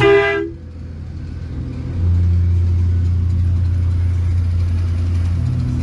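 A short horn blast, then a big bus engine running steadily with a low drone that gets louder about two seconds in.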